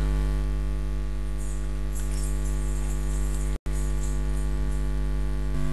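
Steady electrical mains hum, a low buzz with a stack of overtones, picked up on the recording. It cuts out for an instant about three and a half seconds in.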